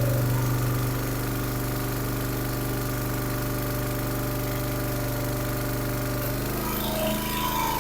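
Briggs & Stratton 306cc single-cylinder engine on a log splitter running steadily, its governor shaft freed after it had seized and kept the engine from starting. The running note shifts about six and a half seconds in.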